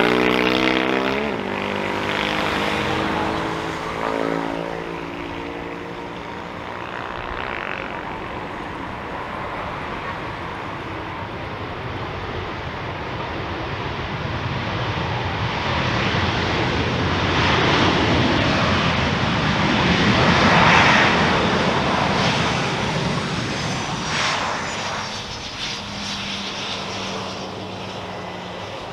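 Boeing 737-800's CFM56 jet engines as the airliner lands: a falling whine in the first few seconds, then a rushing roar that swells to its loudest about twenty seconds in and eases off, typical of reverse thrust on the landing roll.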